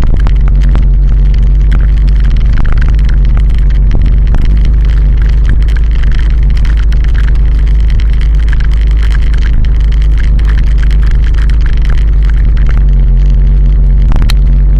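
Loud, steady low rumble of wind and road noise on an action camera's microphone while riding along a concrete road, with frequent small knocks and rattles throughout.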